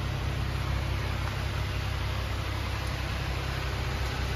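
Steady low mechanical rumble with an even hiss over it.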